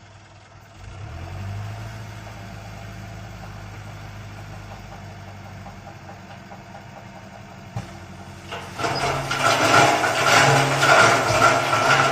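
Heavy machinery's diesel engine running steadily at a road-construction site. About nine seconds in, a much louder, rough clattering noise joins it.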